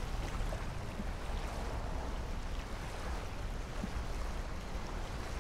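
Steady outdoor ambience of wind and water: an even rushing hiss with a low rumble underneath.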